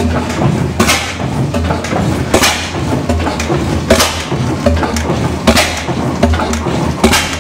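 Reid 15 hp oilfield engine running slowly and warmed up, with a sharp firing bang about every second and a half over a steady low thump and lighter clicks between.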